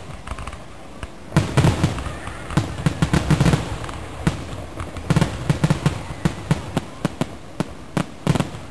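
Aerial firework shells bursting: a rapid string of sharp bangs that comes in several quick clusters, with short lulls between them.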